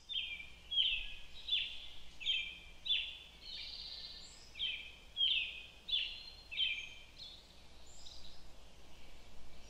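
Bird chirping: a run of short, quickly falling chirps, about one and a half a second, with a few higher notes mixed in, thinning out near the end.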